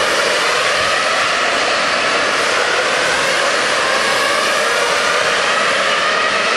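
Steady, loud machine whirring with a faint wavering whine.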